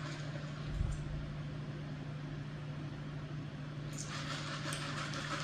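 Steady low hum and background noise, with a soft low thump about a second in; the noise turns brighter and hissier from about four seconds in.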